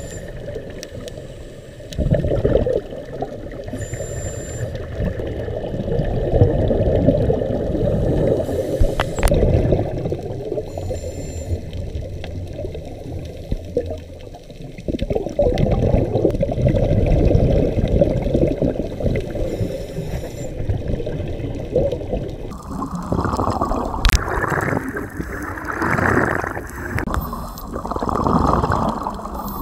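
Muffled underwater water noise: a low churning rumble. About three quarters of the way in it grows louder and brighter, surging in pulses roughly once a second.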